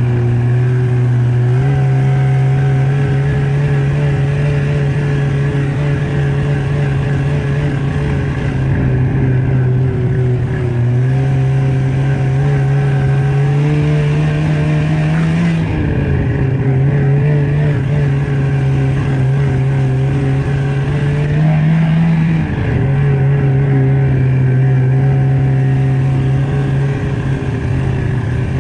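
Snowmobile engine running steadily under way, sped up to double speed. Its pitch climbs gradually about halfway through and again near the end, with short dips between, as the throttle changes.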